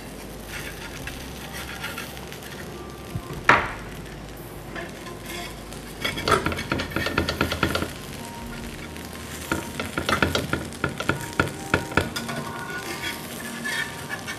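Rice-flour roti frying on a heavy iron tawa, a steady sizzle, while a metal spatula scrapes and taps along its edges in runs of quick strokes. One sharp clack comes about three and a half seconds in.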